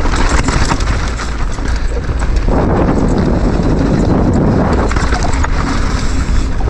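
Downhill mountain bike rattling and clattering over a rocky dirt track, with many quick knocks from tyres and frame hitting stones, over a steady low rush of wind on the camera microphone.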